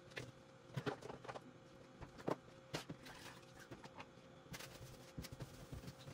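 Scattered light knocks and clicks of kitchen things being handled and set down on the counter, about ten at irregular moments, over a faint steady hum.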